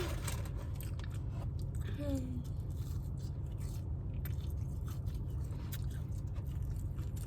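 A person chewing food close to the microphone: irregular small clicks of biting and chewing over a steady low hum.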